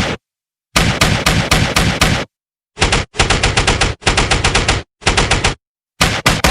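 Bursts of automatic gunfire, rapid shots fired several to about ten a second in five or six separate bursts, each cut off into dead silence before the next.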